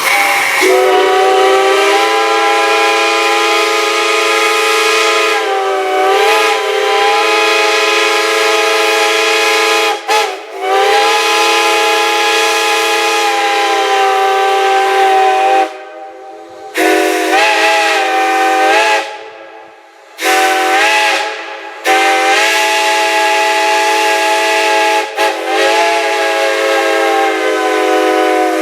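A multi-chime steam whistle sounding a chord of several tones in about five long blasts with short breaks between them. The pitch wavers briefly now and then as the valve is worked.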